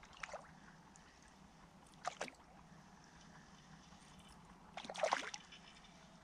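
A hooked rudd splashing at the water's surface as it is played in on a rod: short splashes about a second apart early on, then a longer, louder bout of splashing about five seconds in.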